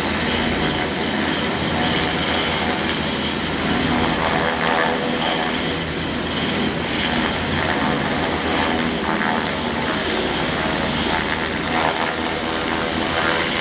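Sikorsky Black Hawk military helicopter hovering low close by, its twin turboshaft engines whining over a steady rapid beat of the main rotor.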